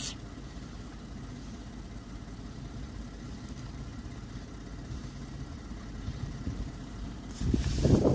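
A vehicle engine idling with a steady low hum. Near the end, a brief loud rush of noise.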